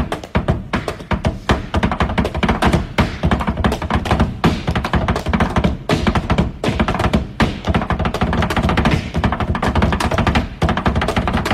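Flamenco shoes stamping out rapid, rhythmic heel-and-toe taconeo footwork on a hard floor, many sharp strikes a second with short breaks in the pattern.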